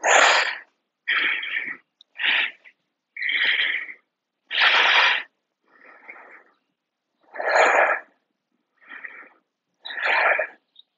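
A man's heavy, audible breathing close to the microphone, short breaths of air roughly one a second, some louder and longer than others, while he holds a yoga forward bend.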